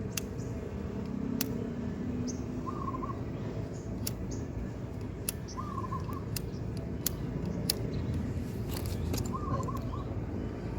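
A bird calls three times, a short warbling call about every three seconds, over a steady low rumble with scattered light clicks.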